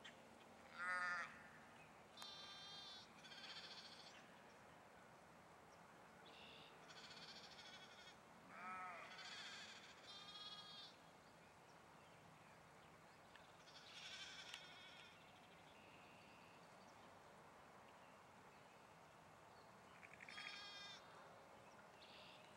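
Ewes and lambs bleating on and off, about nine short, quavering calls, some higher-pitched than others, the loudest about a second in. The calls are faint overall.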